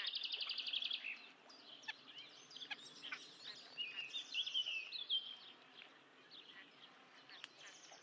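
Small songbirds singing: a fast trill of repeated high notes in the first second, then varied chirps and a scratchy, chattering phrase about four seconds in, growing sparser toward the end.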